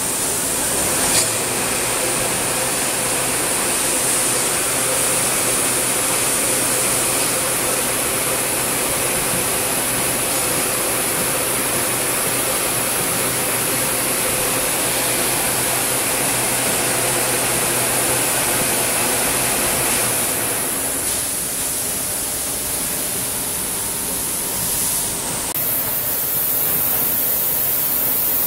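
Doosan Puma 240C CNC lathe running under test: a steady mechanical hum and whine over an even machine noise, with a click about a second in. The hum and whine drop out about twenty seconds in.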